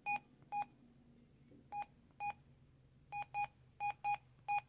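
Midland two-way radio beeping as its buttons are pressed: about nine short, identical high beeps at uneven intervals.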